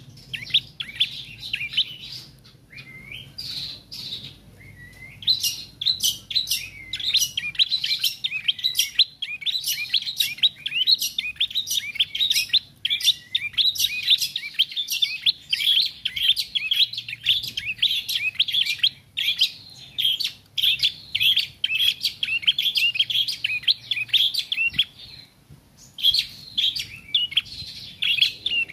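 Young prenjak trotol, a rufous-crowned tailorbird, singing a long run of fast, sharp chirping notes. The notes are sparse at first and come thick from a few seconds in, with a brief pause near the end before it picks up again. It is a juvenile still practising its song.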